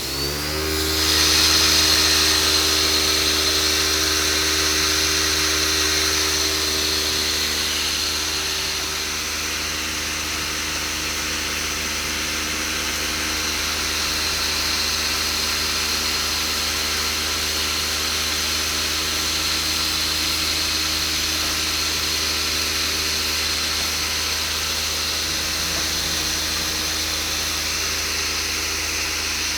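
DW 25 nail-collating machine starting up and running: its whine rises in pitch as it spins up at the start, then settles into a steady high whine over a low electrical hum.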